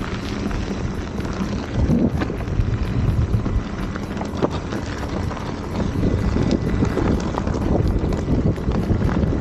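Electric unicycle riding fast on a dirt trail: heavy wind rumble on the microphone, with the tyre running over dirt and loose stones in scattered sharp clicks.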